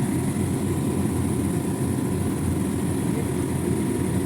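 Steady, even drone of running machinery, strongest in the low range, with faint steady high tones above it.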